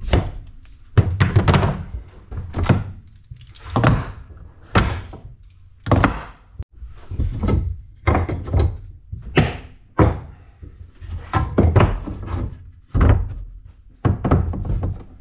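Wooden door-frame rails and stiles and a bar clamp being handled on a plywood workbench: a string of irregular wooden knocks and thunks, about one a second, as the clamp comes off and the dry-fitted frame is taken apart and its boards stacked.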